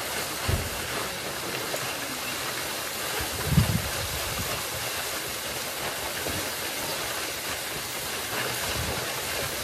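Steady rushing wind noise on the microphone, with two low bumps, about half a second in and again at about three and a half seconds.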